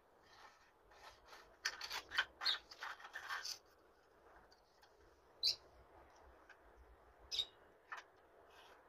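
Hand work on PVC pipe: a quick run of scraping, rubbing strokes for about two seconds, then three separate sharp clicks.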